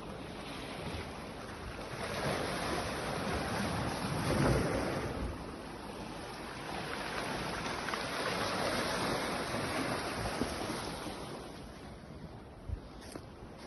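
Wind and sea surf: a steady rushing noise that swells twice and eases off near the end, with wind buffeting the microphone.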